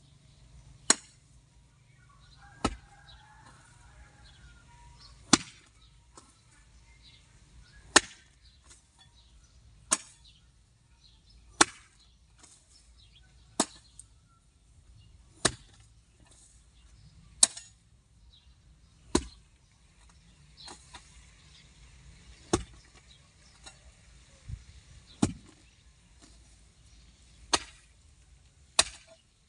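Garden hoe blade chopping into hard, dry ground with repeated single strikes, about one every two seconds, breaking up the soil.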